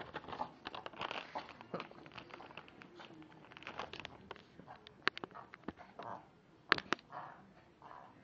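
Yorkshire terrier snorting in short bursts, excited at an awaited treat, among sharp clicks and crinkles; the loudest clicks come about five and about seven seconds in.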